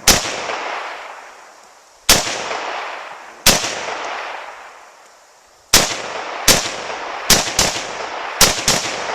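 Nine semi-automatic rifle shots from a GP WASR 10/63 AK-pattern rifle, spaced unevenly: slow aimed shots at first, then quicker pairs near the end. Each shot is followed by a long echo dying away.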